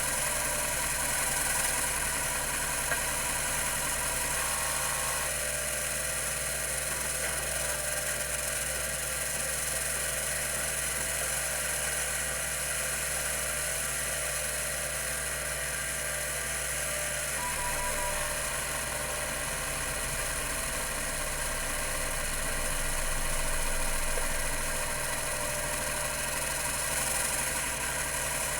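CMI CM-5412 10 MB full-height hard drive spinning at 3600 RPM: a steady motor hum and whine with a high hiss and few seek clicks.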